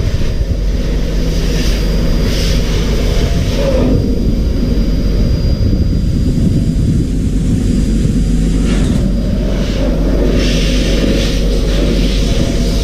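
A machine running with a steady low hum and rumble. Stretches of brighter hiss come and go over it, about two seconds in and again near the end.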